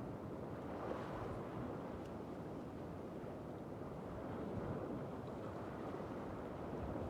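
Steady noise of wind blowing across the microphone mixed with waves washing against a jetty, even and unbroken, with no distinct events.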